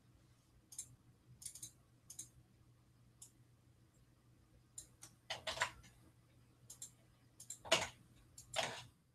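Scattered clicks and key taps from a computer keyboard and mouse, sparse at first and louder and more frequent in the second half, over a faint steady hum.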